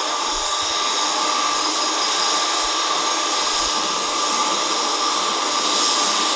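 Jet engines of a Boeing 767 airliner on final approach to land: a steady high whine over a rushing hiss.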